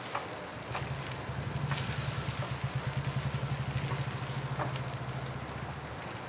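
A low, pulsing engine hum swells in about a second in and fades out near the end. Under it are faint sizzling and a few sharp spatula clicks as mashed-potato stuffing is stirred in a frying pan.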